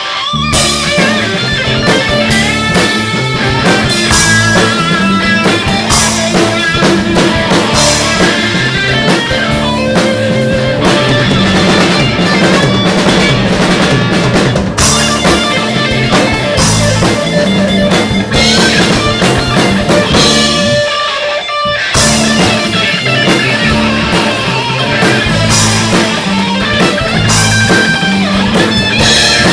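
Live band playing an instrumental passage of a blues-rock song: guitar over drum kit and bass, with no singing. The low end drops out briefly about two thirds of the way through, then the full band comes back in.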